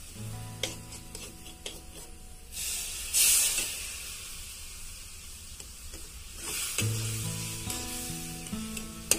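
Milk poured onto hot roasted semolina in a steel kadai sizzles, starting about two and a half seconds in, loudest at first and dying down a few seconds later, while a metal spatula scrapes and stirs the mixture. Background music plays at the start and again near the end.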